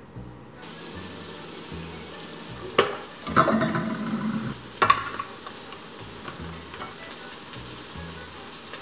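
Hamburg steak patties frying in a pan with a steady sizzle. Over it, a few sharp clicks and, about three and a half seconds in, a clatter as sliced eggplant is tipped from a colander into a glass dish.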